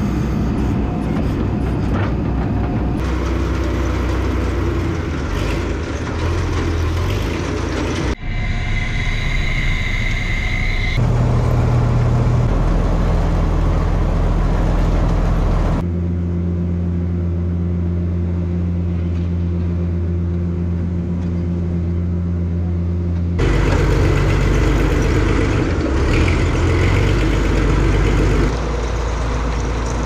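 Diesel farm machinery running: the tractor and loader working a vertical feed mixer wagon as silage is loaded and fed out. A steady low engine hum that changes abruptly in pitch and loudness several times.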